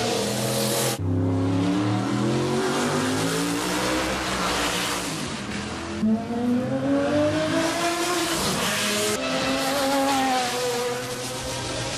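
Group C sports-prototype race car engines at full speed, the pitch rising and falling as the cars rev and pass by. The sound changes abruptly about a second in, near six seconds, and just after nine seconds, as the footage cuts from car to car.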